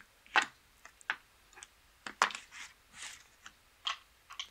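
Clay casino chips clacking and playing cards being swept up off a blackjack table's felt as a losing hand is cleared: a dozen or so short, sharp clicks and scrapes, the loudest about half a second and about two seconds in.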